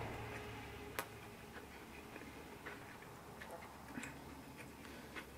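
Wooden chopsticks clicking against a ceramic rice bowl and plates while eating: a few small, sharp ticks, the sharpest about a second in.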